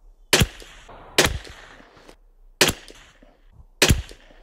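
Four shots from a Sako P94S .22 LR rimfire rifle, about a second apart, each a sharp crack with a short echo.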